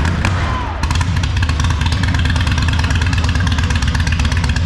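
Motorcycle engine with a very loud exhaust, running steadily with a rapid, even beat and a heavy low rumble.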